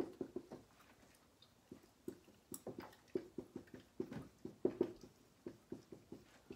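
Faint sounds of handwriting: a run of short, irregular strokes and taps as words are written out.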